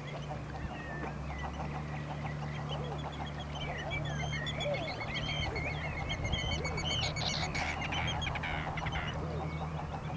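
A flock of birds calling: many short, overlapping chirps and arching calls, busiest in the second half, over a steady low background hum.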